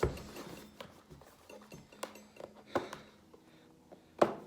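A few light knocks and taps from the keyboard's packaging being handled during unboxing, the sharpest one near the end.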